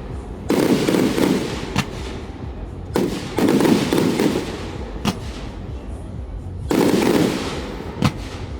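Aerial fireworks shells bursting: three loud booms about three seconds apart, each rumbling away over about a second, with a sharp single crack between each.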